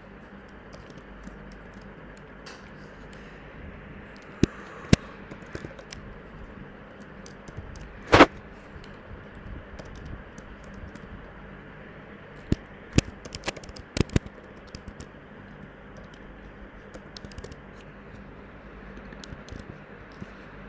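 Computer keyboard keystrokes, sparse and irregular, with a louder click about eight seconds in, over a steady low hiss.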